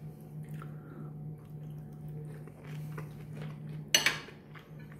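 Quiet chewing of mixed vegetables with small scattered clicks, over a steady low hum. About four seconds in comes one sharp clink of cutlery against a dish.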